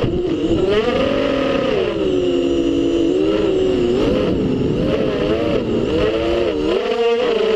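An FPV quadcopter's brushless motors and propellers whining, heard up close from its onboard camera. The pitch dips and rises again and again as the throttle is worked through turns.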